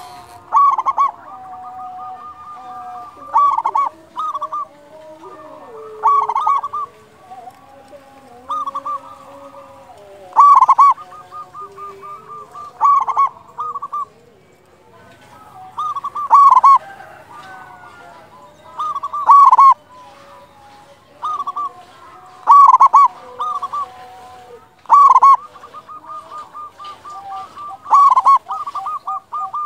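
Zebra dove (perkutut) cooing its rhythmic song, a loud phrase of quick notes repeated about every two and a half to three seconds, with fainter, lower cooing running beneath.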